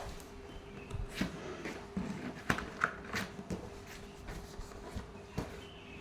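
Hands handling the plastic parts of a gravity water purifier: a series of irregular light knocks and clicks, with a faint steady hum underneath.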